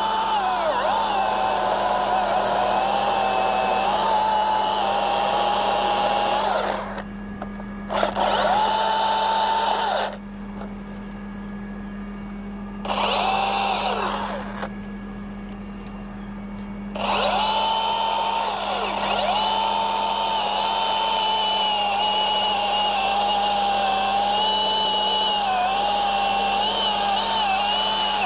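Milwaukee battery-powered top-handle chainsaw cutting a notch: a steady electric motor whine that sags in pitch as the chain bites. It stops three times in the middle, for one to three seconds each, then runs steadily again.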